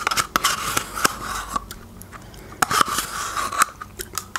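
Close-up eating sounds of spooning yogurt: wet mouth clicks and smacks, with two scraping stretches of about a second each as a spoon scrapes out the last of a plastic yogurt cup.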